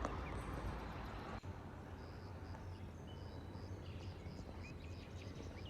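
Outdoor ambience: a steady low background rumble, with small birds chirping in short, high, faint notes.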